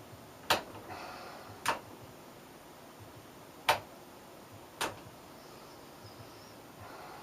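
Four sharp clicks in two pairs: two about a second apart, a gap of about two seconds, then two more about a second apart.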